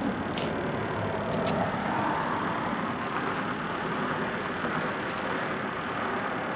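Steady noise of road traffic passing, with a couple of faint clicks about half a second and a second and a half in.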